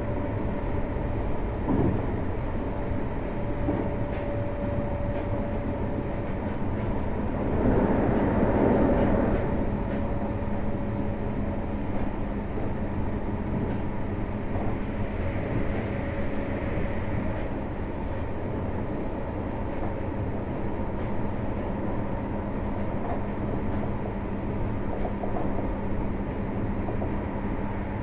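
Running sound inside a JR Hokkaido 733 series electric multiple unit's motor car at speed: a steady rumble of wheels on rail, with faint held tones running through it. About eight seconds in, a louder swell of noise lasts a couple of seconds.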